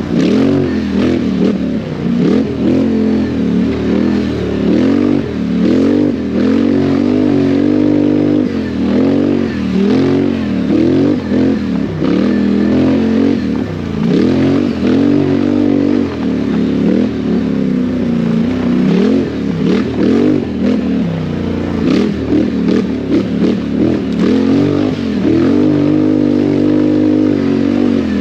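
ATV engine revving up and down over and over under hard riding, its pitch rising and falling every second or two. Scattered clicks and knocks sound through it.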